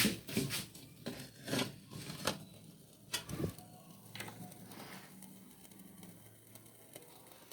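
Light clinks and knocks of small metal parts being handled, several in the first three and a half seconds, then a faint low steady hum.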